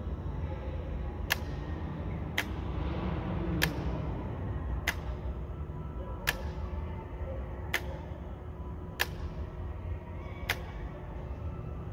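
Eight sharp single clicks, about one every second and a quarter, as the bi-LED headlight projector is switched back and forth between low and high beam, over a steady low rumble.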